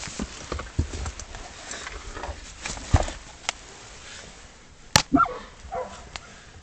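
Knocking and scraping in the earth of a fox den, with two sharp knocks about three and five seconds in. A German hunting terrier gives a few short, muffled barks just after the second knock, baying at a fox underground.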